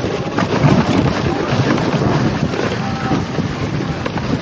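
Dog sled moving over packed snow: runners scraping and hissing along the trail under a steady rumble, with wind buffeting the microphone.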